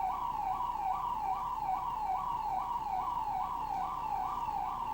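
Electronic alarm siren sounding continuously, its tone sweeping up and down in a quick repeating wail, about two to three cycles a second.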